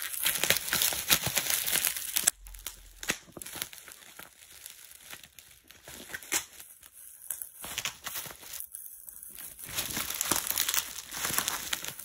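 Bubble wrap crinkling and crackling as it is handled and pulled off a package: dense for the first couple of seconds, sparse through the middle, then busier again near the end.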